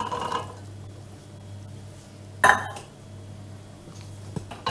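Boiled chickpeas poured from a small stainless-steel pot into a larger steel pot, with a soft pouring rush at the start. A sharp metal clank about halfway through, pot against pot, is the loudest sound, and a couple of lighter knocks follow near the end, over a low steady hum.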